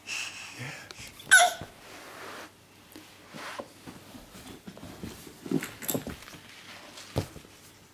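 A baby's vocal sounds: a short, loud, high-pitched squeal about a second in, with softer coos and grunts later, and a brief knock near the end.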